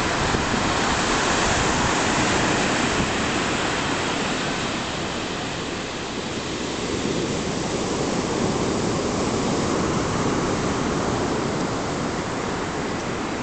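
Stormy surf on the Black Sea breaking on a beach: a loud, continuous rush of water that swells and eases with the waves, dipping a little about halfway through.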